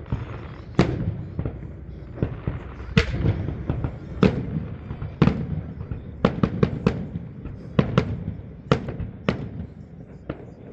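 Fireworks display: sharp bangs at irregular intervals, with a quick run of cracks around the middle, over a steady low rumble.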